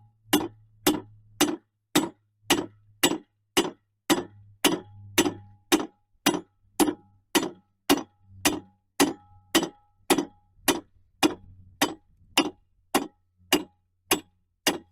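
Hand hammer forging a nail on the small anvil of a Stowell 'Hanson' combination vise: evenly paced metal strikes, about two a second, each with a short ring, stopping near the end. A faint low hum runs underneath.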